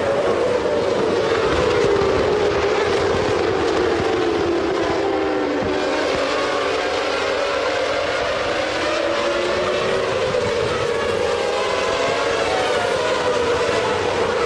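Several Formula One racing engines running at high revs together, their overlapping tones slowly falling and rising in pitch.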